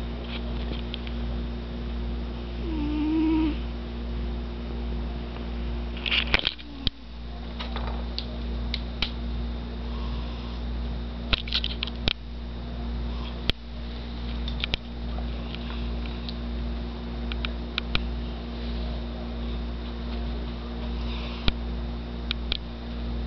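A cat snoring loudly, its breaths swelling and fading in a slow, even rhythm. A brief squeaky note about three seconds in, and scattered clicks and crackles, the loudest about six seconds in.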